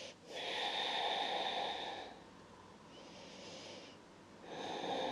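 A woman's slow, audible breathing while she holds a yoga twist: a louder breath lasting about two seconds, a softer one after it, and another starting near the end.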